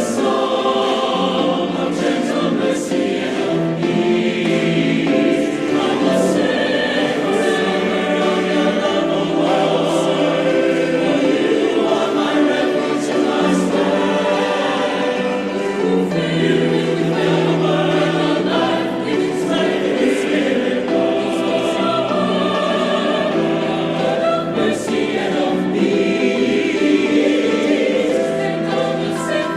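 A mixed choir singing in sustained, held chords that change every second or so.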